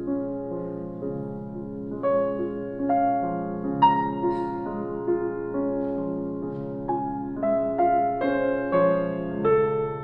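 Slow background piano music, single notes struck about once a second and left ringing over one another.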